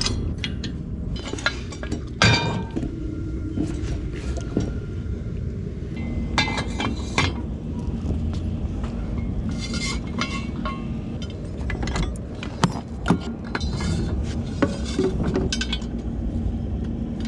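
Scattered metallic clinks and knocks of steel ladder-crane parts, the ladder bracket, the square-tube crane arm and its locking pins, being fitted and pinned together by hand. A steady low rumble and a faint hum run underneath.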